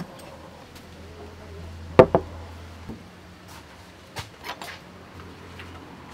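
Sharp knocks and clicks of a ceramic bowl and dishes being handled, the loudest a double knock about two seconds in, with a few lighter clicks later, over a low steady hum.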